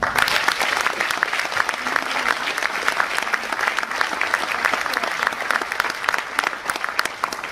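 An audience applauding: dense, steady clapping from many hands that starts all at once.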